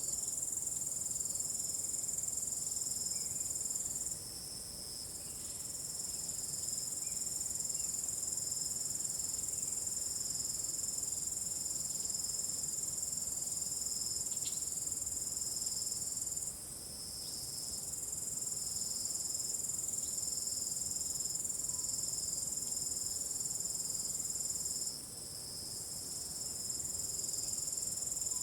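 Field crickets chirping together at night in a continuous high-pitched chorus at two pitches. The higher-pitched singers fall silent three times, briefly dropping the overall level before the chorus swells back.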